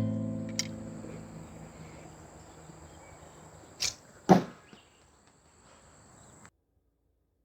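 A held music chord fading away under a steady high, thin insect-like whine, with two sharp whooshing strokes about four seconds in, the second louder; then everything cuts off abruptly.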